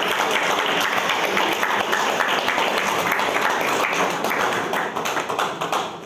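A crowd applauding, a dense patter of many hands clapping at once that falls away near the end.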